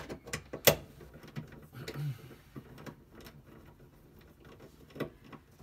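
Ratchet wrench clicking in irregular runs as an 8 mm bolt holding the trunk floor panel is undone, with a sharp metallic click under a second in.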